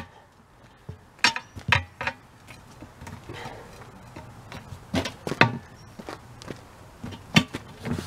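Two steel pry bars knocking and scraping against a steel wheel rim while prying a tire bead over the rim edge. The sharp metal knocks come mostly in pairs, a few seconds apart.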